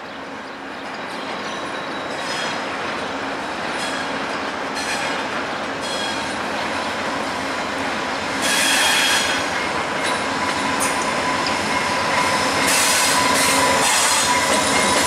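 VIA Rail P42 diesel locomotive and its HEP-II passenger cars rolling slowly over the curving station approach tracks, getting louder as the train draws near. The wheels squeal in repeated high-pitched bursts over a steady rumble, loudest about nine seconds in and again near the end.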